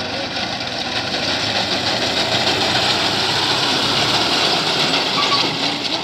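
Tractor engine running under load as its front-mounted reaper cuts standing wheat, a dense steady mechanical din that grows louder as the machine comes close, loudest in the second half.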